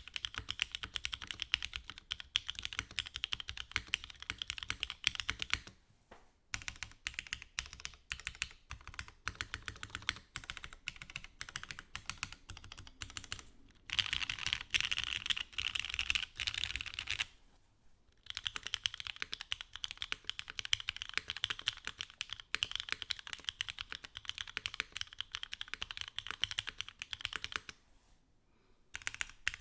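Typing on a Mode Sonnet mechanical keyboard with Ultraglides switches, a POM plate and a copper bottom case: fast runs of keystrokes with brief pauses. After a short break about eighteen seconds in, the typing resumes with the board in foam stack mount instead of top mount.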